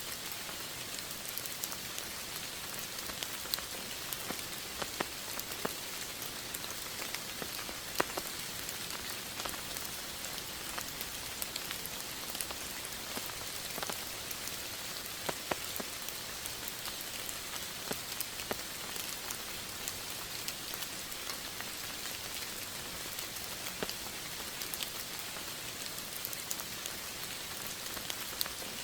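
Steady rainfall, a continuous hiss with many separate drops ticking and pattering on a surface throughout.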